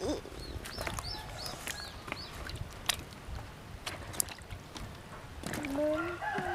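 Water sloshing and splashing in a bucket as hands scrub and turn green kapok pods, with light knocks of pods against each other. Near the start a bird gives a quick run of five or six short high chirps, and a person's voice comes in near the end.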